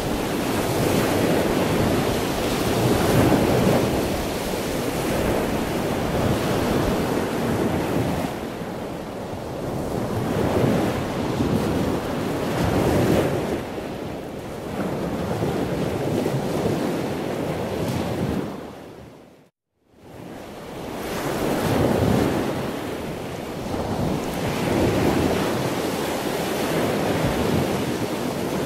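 Rushing noise like breaking surf, swelling and fading every two to three seconds. It drops briefly to silence about two-thirds of the way through.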